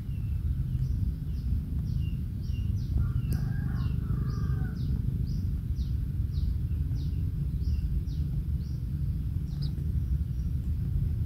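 A bird repeating short, high chirps that sweep downward in pitch, about two a second, over a steady low rumble of background noise.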